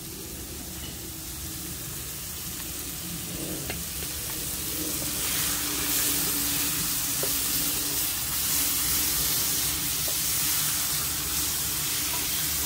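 Sliced onions, sweet peppers and tomatoes sizzling in a frying pan as they are stirred with a wooden spoon. The sizzle grows louder about five seconds in, with a few light taps of the spoon against the pan.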